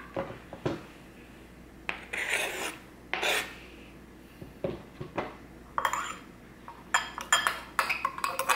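A kitchen knife scraping food off a cutting board and against a colander bowl: two longer scrapes in the first half, then a run of quick taps and short scrapes near the end.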